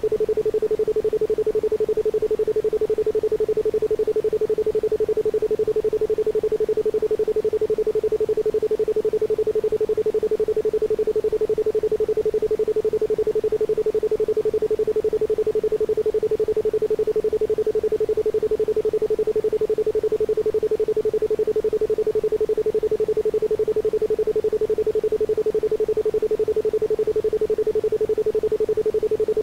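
Isochronic tone: a single pure tone of about 432 Hz, pulsed on and off rapidly and evenly, with no other sound behind it.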